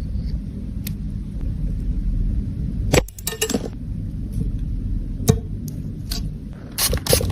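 Small hard objects clicking and clinking as they are handled, a few separate clicks and a short cluster of them, over a steady low rumble.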